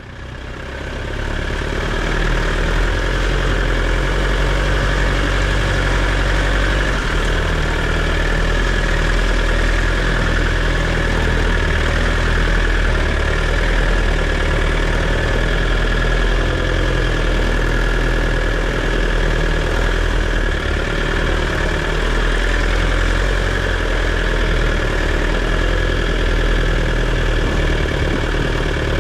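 An engine running steadily with a constant whine over it, fading in over the first two seconds.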